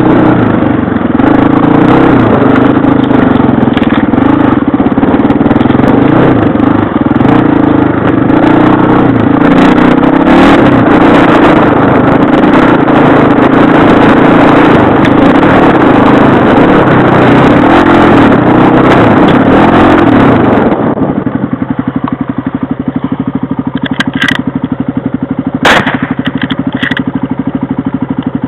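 Off-road bike engine running hard under load over rough ground. About three-quarters of the way through it drops to a lower, pulsing idle, with a few sharp knocks and clatters.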